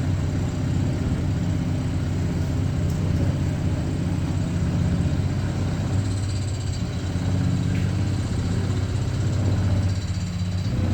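Steady low hum of idling shop machinery, a CNC milling machine and its running auxiliaries, with no cutting heard.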